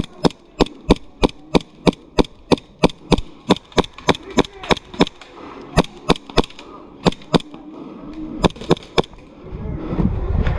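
Airsoft gun firing rapid single shots, about three to four a second for some five seconds, then a few scattered shots.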